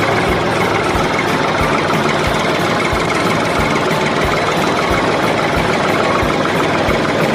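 Tractor engine running steadily, with a low, even thump about three times a second.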